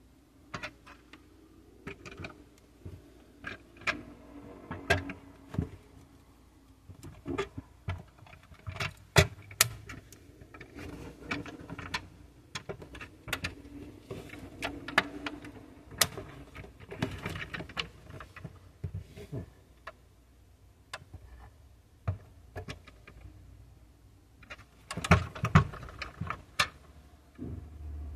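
Scattered clicks and taps of a 1/24 scale diecast Nissan Skyline R34 model being handled, its opening hood and doors worked by hand, with a cluster of louder clicks near the end.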